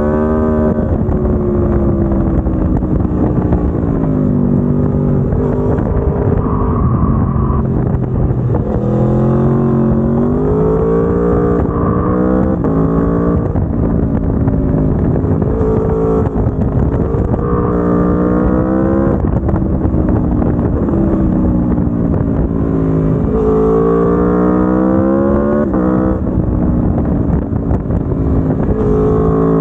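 Aprilia Tuono V4 1100 Factory's V4 engine through its stock exhaust, pulling hard through the gears again and again. Its pitch climbs, drops at each upshift and falls away when the throttle is eased, then rises again.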